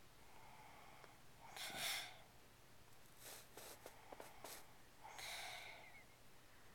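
Snoring during sleep. A noisy breath comes about a second and a half in, then a crackling rattle from about three to four and a half seconds, then another drawn breath near the end.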